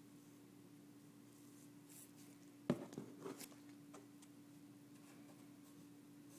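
Paperback books being handled in a cardboard box: a short cluster of taps and rustles a little under three seconds in, and a faint tick about a second later, over a faint steady hum.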